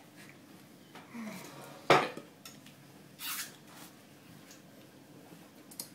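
Someone handling and eating a whole lemon: quiet rustling, a single sharp knock about two seconds in, and a short hiss of breath about a second later.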